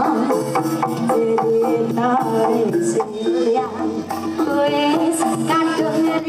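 Live jaranan music from a Javanese gamelan ensemble: rapid percussion strokes under a held, wavering melody line.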